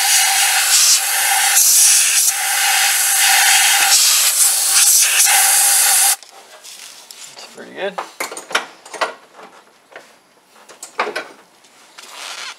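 Compressed air blown from an air nozzle into a spark plug well to clear out dirt: a loud hiss with a steady whistle in it, which cuts off suddenly about six seconds in. Light clicks and rubbing of hands and tools follow.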